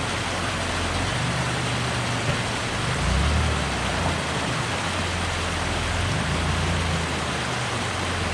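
An off-road truck engine running at low revs, its pitch rising and falling a few times, with a steady hiss over it.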